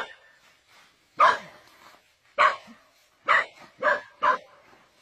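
A dog barking: five short, sharp barks, about a second apart at first and closer together near the end.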